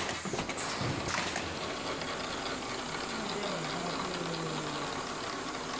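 Automatic mask welding machine running with a steady mechanical clatter, with a few sharp clicks in the first second and a half.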